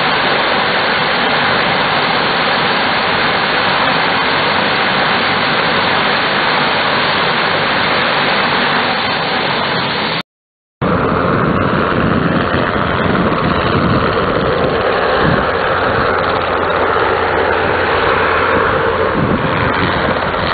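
Lockheed L-188 Electra's Allison 501 turboprop engines running steadily during a ground run-up: loud, even turbine and propeller noise. It cuts off for half a second about halfway, then resumes at the same loudness with a steady whine over a deeper rumble.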